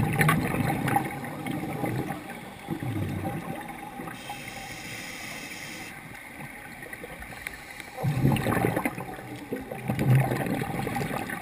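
Scuba diver breathing through a regulator underwater: bursts of exhaled bubbles rumbling and gurgling at the start, briefly around three seconds in and again from about eight seconds on, with a steady hiss of an inhalation through the regulator in between.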